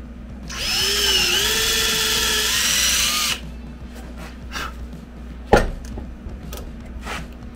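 Cordless drill boring deeper into the wooden axe handle beside a steel step wedge. It runs for about three seconds, starting half a second in, and its motor whine dips and rises as the bit bites. About two seconds after it stops there is a single sharp knock.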